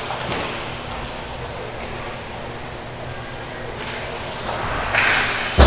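Roller hockey game noise in an indoor rink: a steady rush of play and skating, with a sharp thump near the end, the kind of knock a puck or stick makes against the boards.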